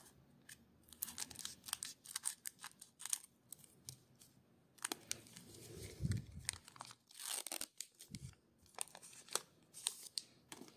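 Scissors cutting open a foil Pokémon booster pack and the wrapper crinkling and tearing as it is handled, a run of sharp irregular crackles with a dull thump about six seconds in; the cards rustle as they are slid out.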